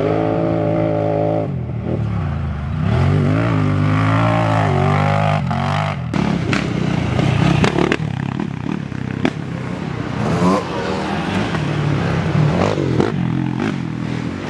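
Racing ATV engines revving hard, the pitch dropping and then climbing as the throttle is worked. About six seconds in, the sound switches abruptly to quads running up a rocky trail, with engine noise mixed with rattles and knocks.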